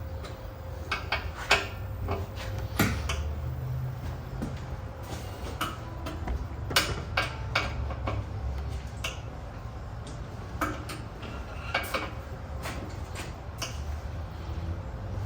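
Irregular metallic clicks and clinks of hand tools and bolts, a few of them ringing briefly, as hardware is fitted and tightened, over a steady low hum.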